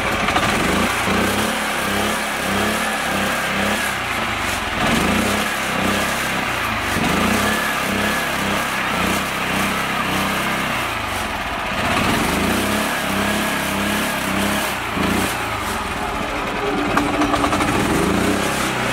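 Mini tractor's engine running with a rapid pulsing beat, revving up and falling back several times as the tractor works through deep, sticky mud.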